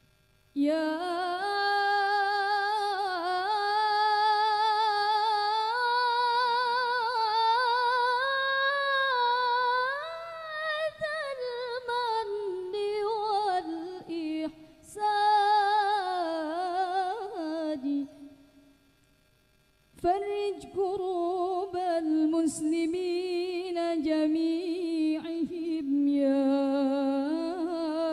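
Female voices singing al-Banjari sholawat without drum accompaniment, in long melismatic lines with a wide vibrato. The singing breaks off for about two seconds two-thirds of the way through, then resumes.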